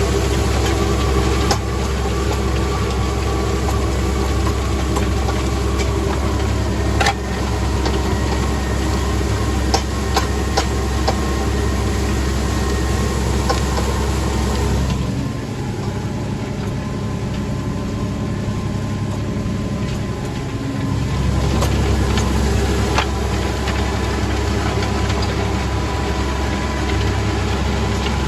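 Tractor engine running steadily, with scattered sharp clicks. The deep low rumble drops away for several seconds past the middle, then returns.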